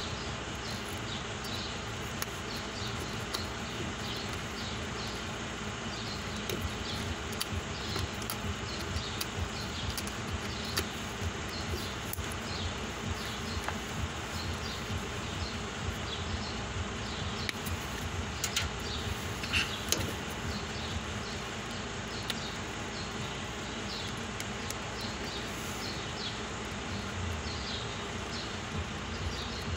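Steady background hum with insects buzzing and short, repeated high chirps, and a few light clicks from hands handling the wiring harness, mostly about two-thirds of the way in.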